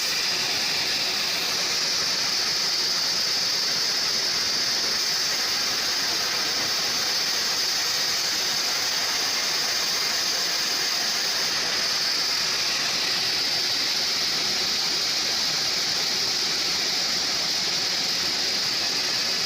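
Home-built band sawmill running steadily, a constant high hiss with no break.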